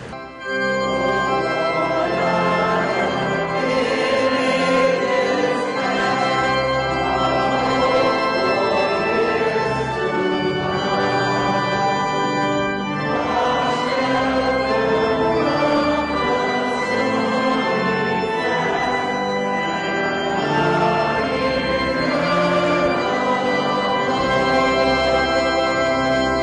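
Church organ playing slow, sustained chords. It comes in about half a second in, right after the spoken address ends.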